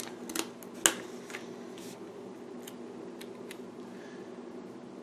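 Paper stickers and planner pages being handled as a date-cover sticker is peeled from its sheet and pressed onto a page: light paper rustles and small clicks and taps, the sharpest just under a second in, then a few soft ticks. A steady low hum runs underneath.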